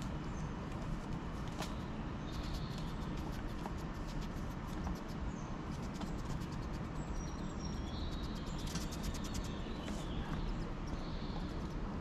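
Squirrel at a tray feeder close by, with rapid runs of small sharp clicks as it eats seed and scrabbles on the feeder and wooden railing, most dense through the middle. A steady low outdoor rumble lies underneath, with a few short high bird chirps.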